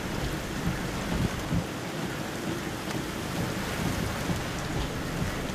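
Hurricane Harvey's lingering wind and rain: a steady rush of wind and rain with gusts buffeting the microphone in a low, uneven rumble.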